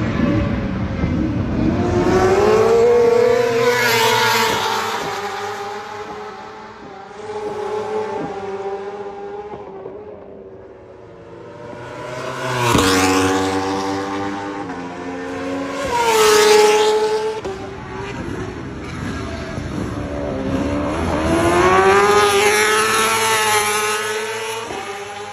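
Superbike racing motorcycles passing at high revs, one after another. Each engine note swells as a bike approaches and drops in pitch as it goes by, about four passes in all.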